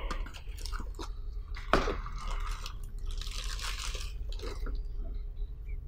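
Clear plastic packaging bag crinkling and rustling as a keypad is handled and pulled out of it, with a few light knocks of the cardboard box. A sharp rustle comes a little under two seconds in and a longer crinkle around three to four seconds in.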